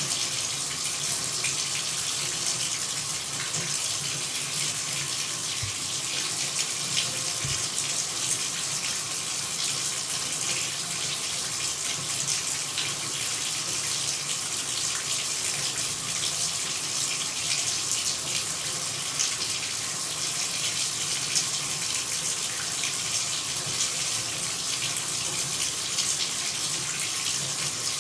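Water running in a steady, unbroken stream, a bright even hiss with no change in flow.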